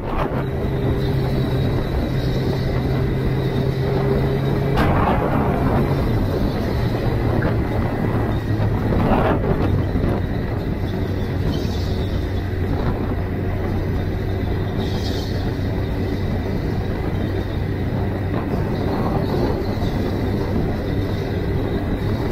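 Suzuki GSX-R 1000's inline-four engine running under way at steady road speed, heard under heavy wind noise on the rider's microphone. The engine note drops a step about five seconds in, and there are two louder whooshes at about five and nine seconds in.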